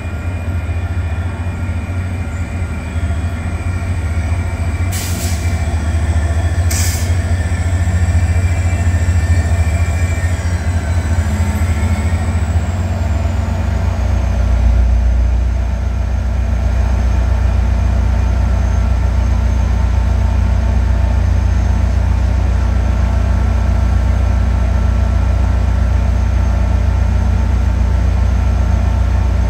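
Caltrain F40PH diesel-electric locomotive pulling into the platform, its diesel engine droning steadily. Two short high-pitched noises come about 5 and 7 seconds in, and about 14 seconds in the engine note drops lower as the train comes to a stand, then holds steady.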